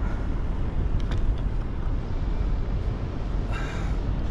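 Steady low rumble of wind and open-water harbour ambience around a kayak, with a couple of faint clicks about a second in and a brief hiss near the end.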